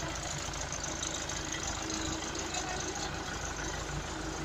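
Tractor engine idling steadily in a workshop during a repair test run.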